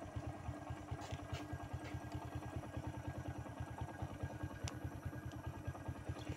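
Faint, steady running of a small engine at idle, heard as a low, even pulsing of about ten beats a second.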